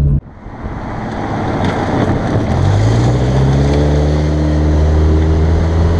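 Cosworth-supercharged Toyota GT86's 2.0-litre flat-four running while the car drives, heard from a camera mounted low by the rear wheel under road and wind noise. The engine note comes in about two and a half seconds in, rises briefly, then holds steady.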